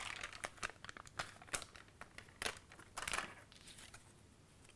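Plastic liner of a roll of adhesive dimensional foam dots crinkling and crackling as dots are peeled off, with cardstock being handled. The crackles come in an uneven run and stop about three and a half seconds in.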